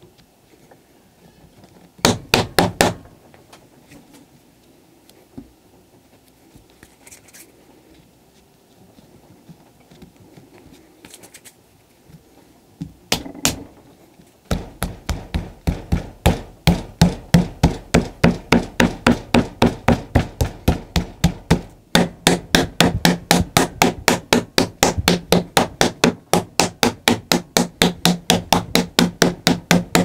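A few knocks, then from about halfway a fast, steady run of knocks, several a second: a clay slab being beaten flat by hand into a wooden frame on a wooden board.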